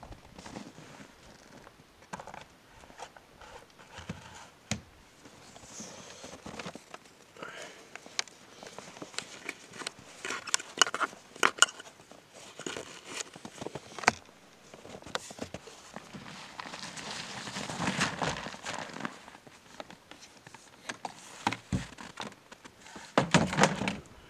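Footsteps in snow and gear being handled and loaded into a plastic sled: scattered knocks and clatters, with stretches of rustling, and a louder cluster of knocks near the end.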